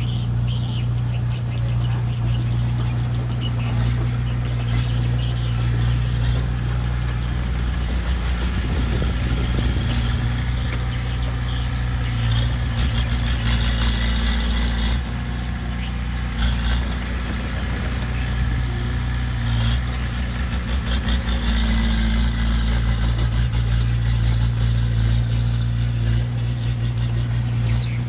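Diesel engine of earthmoving machinery running steadily, its note rising and falling, with metallic clanking and rattling throughout.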